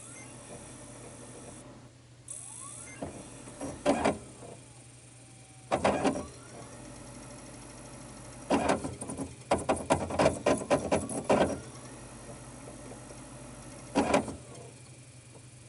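DVD player loading a disc: a small tray motor whirs over a steady low hum, with several separate plastic clunks and, in the middle, a quick run of rattling clicks.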